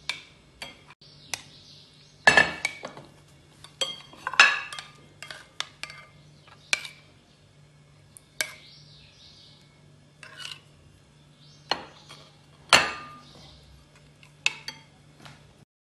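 Kitchen bowls and a spoon clinking and knocking together in irregular, separate strikes, each with a short ring, over a faint steady low hum.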